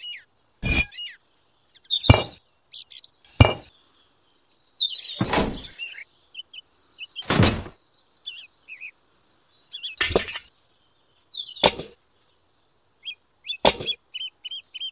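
Sharp knocks of miniature clay bricks and toy pieces set down by hand, about eight of them spread through, with small birds chirping in between.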